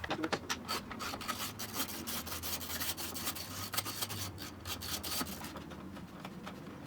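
Irregular scraping, rubbing and clicking of hard plastic door trim being handled. It is dense for about five seconds, then thins out.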